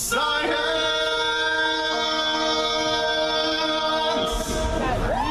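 Amplified a cappella singing from an outdoor stage's loudspeakers: several voices hold one long chord for about four seconds, then a single voice slides up into a held high note near the end.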